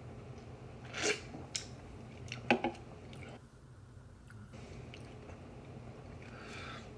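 Mouth chewing and crunching wavy Pringles potato crisps close to the microphone, with a few sharp crunches about a second in and again about two and a half seconds in, then softer chewing.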